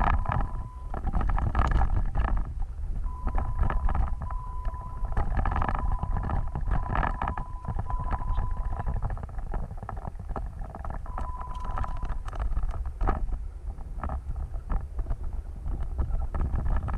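Off-road vehicle driving over rough ground: a steady low rumble with frequent knocks and rattles, and wind on the microphone. A thin, steady high whine comes and goes several times.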